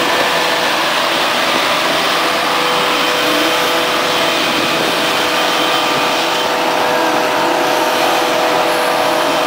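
John Deere tractor running as it drives past close by, pulling a loaded silage wagon: a loud, steady machine noise with a faint high whine held through it.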